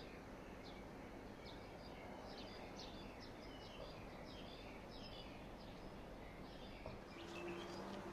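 Faint chirping of small birds, many short calls in quick succession over a steady background hiss. A low steady hum comes in near the end.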